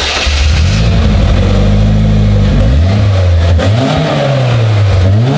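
Polaris Slingshot's GM four-cylinder engine with aftermarket headers, just started and running loud and steady, then revved in a few short throttle blips in the second half.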